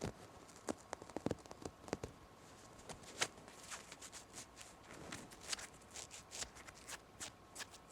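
Close-miked, irregular light taps and scratches on fabric or canvas, a few crisp clicks a second.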